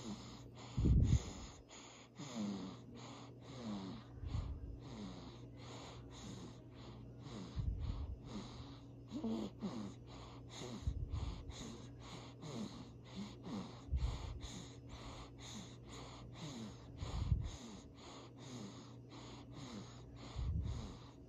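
Baby snoring and snorting while breathing in sleep: a deeper, low breath about every three seconds, with short squeaky, whistling snorts between them.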